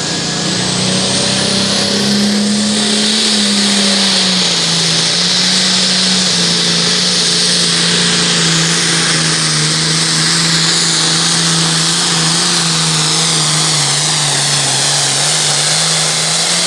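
Super Farm class pulling tractor's turbocharged diesel engine running flat out through a full pull, loud and steady, with a high whine and hiss over the engine note. A whistle rises in the first couple of seconds, and the engine's pitch eases down gradually over the run as the sled loads it.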